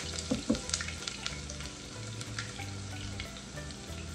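Chopped onion frying in oil in a saucepan: a steady sizzle with scattered crackles and pops, a few sharper pops in the first second.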